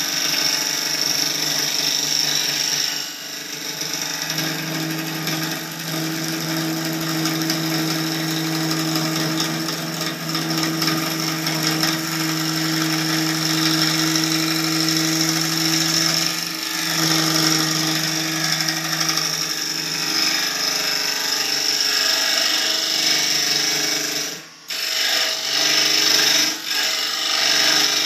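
Turning tool cutting into a maple crotch blank spinning on a wood lathe: a continuous hiss and rasp of the cut. A steady hum runs under the middle stretch, and the cut breaks off for a moment near the end.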